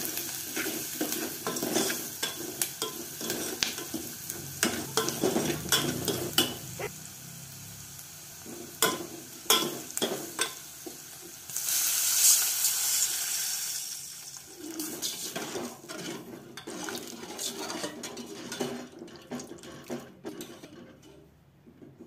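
A steel ladle stirring and scraping onions and chilli powder frying in oil in an aluminium pot, with frequent clinks against the pot and a sizzle. About twelve seconds in, water is poured into the hot oil and hisses loudly for a couple of seconds, then the stirring and clinking go on in the watery mixture, fading near the end.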